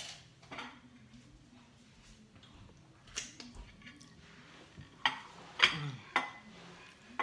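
Ceramic plate and metal spoon and fork clinking and knocking as a plate of rice is carried and set down on a granite countertop. Scattered light clinks come first, and the loudest clatter is about five to six seconds in.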